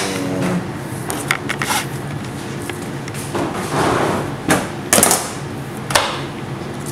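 Knife cutting through a slab of raw pork belly on a stainless-steel worktop, with a few sharp knocks on the steel and a rougher slicing stretch near the middle. A steady low hum runs underneath.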